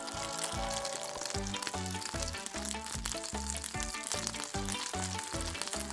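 Fish fillets sizzling and crackling in a hot frying pan, over background music with a steady beat.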